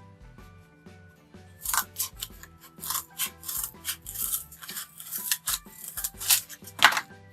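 Scissors cutting through a cardboard carton: a run of irregular crunching snips starting about a second and a half in, the loudest near the end. Background music plays underneath.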